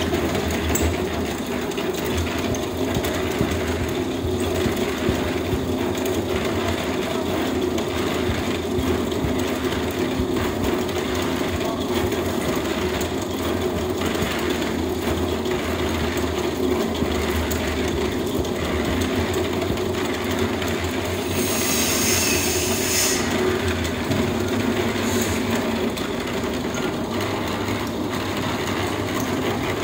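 A machine motor running steadily with a low, even hum, under the scrape and drag of hoes working a sand-and-cement mix across the floor, about one stroke a second. A short hissing scrape about two-thirds of the way through.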